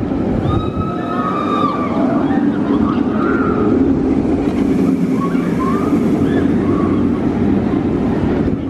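Loud steady rushing outdoor noise with scattered short voices of people nearby.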